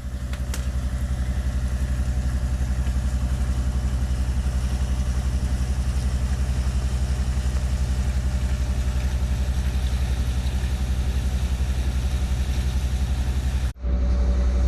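Boat's outboard motor running at a steady speed, with a brief break near the end.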